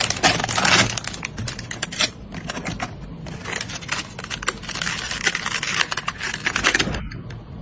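Rapid, irregular clicks and rustling of hands handling computer parts and packaging, busiest in the first second.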